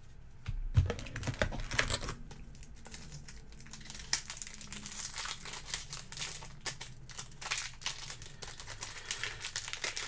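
Trading cards and their packaging being handled close to the microphone: irregular crinkling and rustling, loudest in the first couple of seconds.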